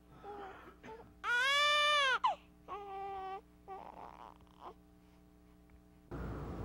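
Newborn baby crying: soft fussing, then one long cry that drops in pitch as it ends, a shorter second cry, and a few more small whimpers.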